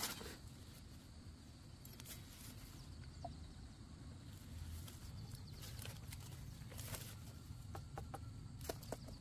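Chickens clucking faintly, with scattered light rustles and knocks.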